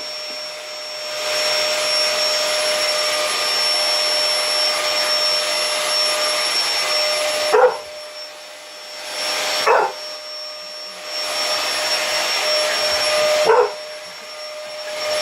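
Vacuum cleaner running with a steady whine, its noise dipping in level several times, while a young chocolate Labrador retriever barks at it three short times, about halfway through, two seconds later and near the end.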